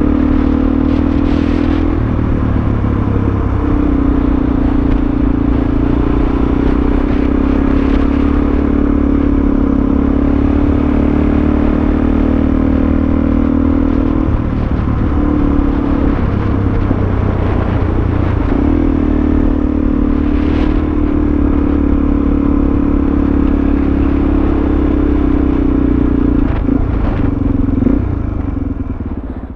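Suzuki DR-Z400SM's single-cylinder four-stroke engine running at road speed, with wind noise on the microphone. The engine note drops away and comes back a few times as the throttle changes. Near the end the bike slows and the sound fades out.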